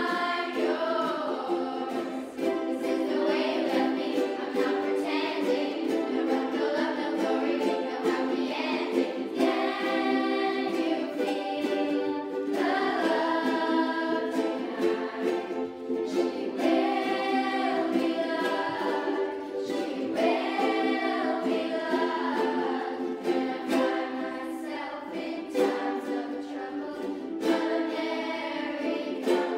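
A group of children singing together while strumming ukuleles.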